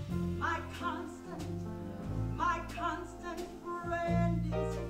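A woman singing with live band accompaniment, phrase after phrase over long held low bass notes.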